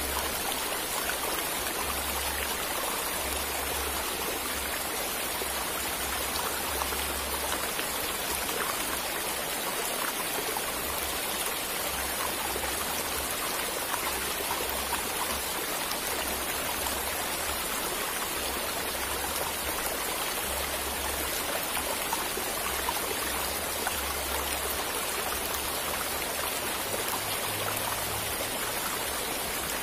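Steady rushing of flowing stream water, with occasional low rumbles underneath.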